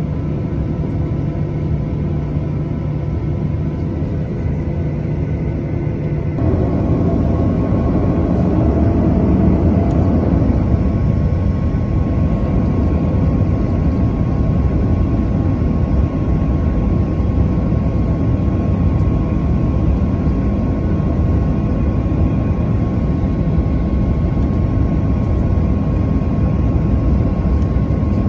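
Jet airliner engines heard from inside the cabin while taxiing: a steady low rumble. About six seconds in, it grows louder and a steady high whine comes in as the engine power rises.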